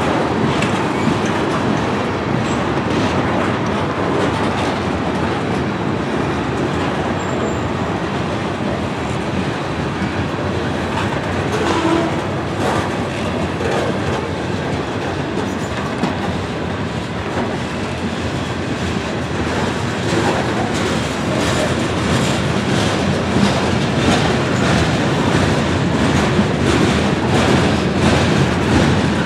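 Freight cars of a manifest train rolling past at speed, covered hoppers and tank cars, in a steady rumble with the wheels clicking over the rail joints, the clicks more frequent in the second half.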